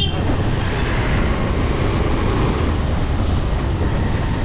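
Motorcycle on the move: wind rushing over the microphone with the engine running underneath, a steady noise that stays strongest in the low end.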